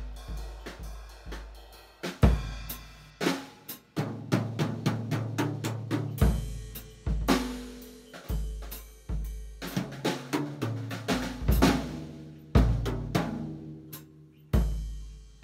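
Basix drum kit played with sticks: uneven runs of snare and tom hits over the bass drum, with cymbal crashes and the toms left ringing. The loudest crashes come about two seconds in, again past the twelve-second mark, and near the end.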